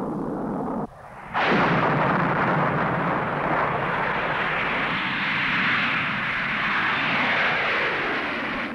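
Loud, steady jet roar of two Hawker Siddeley Harriers' Rolls-Royce Pegasus vectored-thrust engines as the aircraft lift off vertically and hover low. A lower rumble comes first and breaks off briefly about a second in.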